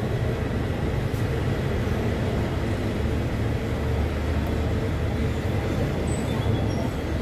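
State Railway of Thailand passenger train moving slowly along the platform, a steady low rumble.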